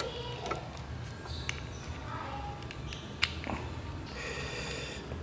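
Quiet handling of a multimeter's test probes and a plastic camera battery as the probes are put to its contacts, with a few faint clicks and taps, the sharpest about three seconds in, over a low steady hum.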